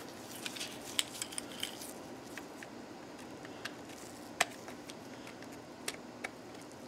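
Scattered light clicks and taps of hard plastic parts and a small screwdriver being handled while a clipped-in connector inside a security camera is worked loose. The clicks come several in the first two seconds, then sparser, with the sharpest one a little past the middle.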